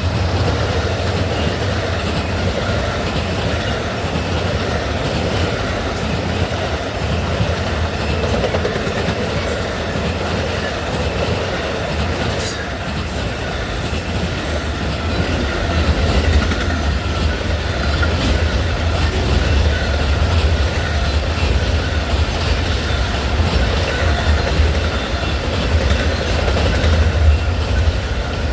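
Amtrak Auto Train rolling past at speed: a steady, loud rumble of steel wheels on rail with clickety-clack over the joints, and a few short high-pitched screeches about halfway through.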